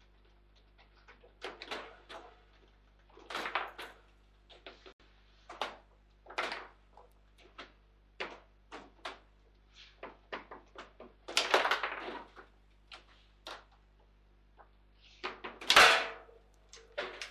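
Foosball table in play: the ball and rods knocking against the player figures and the table walls in irregular hard knocks and short clatters, some in quick clusters. The loudest knock comes near the end.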